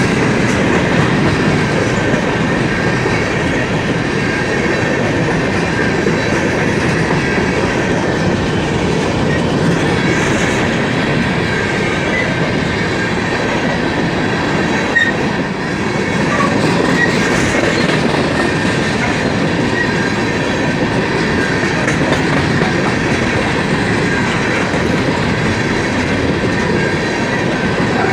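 Cars of a BNSF coal train rolling steadily past on the rails, a continuous rumble of wheels on track with a thin, steady high squeal from the wheels.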